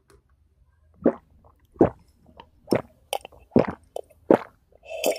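Sipping a drink through a straw from a paper cup and gulping it down: a string of short, wet swallowing sounds, about one a second.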